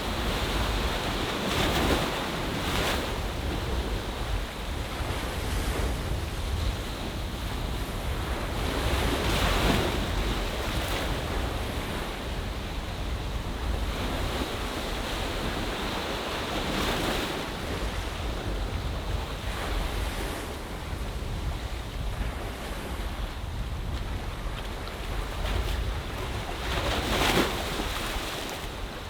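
Ocean bay surf: a steady wash of waves, with splashes swelling up about six times, the loudest near the end. A low rumble of wind on the microphone runs beneath.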